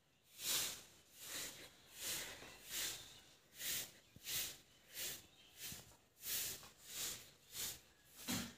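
Hand broom sweeping a dirt yard: a steady run of swishing strokes, about three every two seconds.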